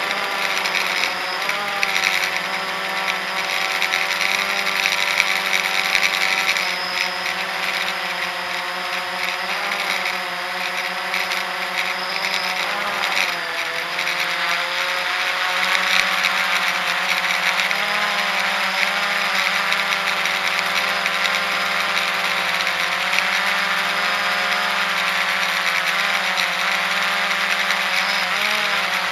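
Blade 350 QX3 quadcopter's brushless motors and propellers running continuously, heard close from the camera on board: a steady whine of several tones that drift up and down in pitch as the motor speeds shift, over a hiss of air from the props.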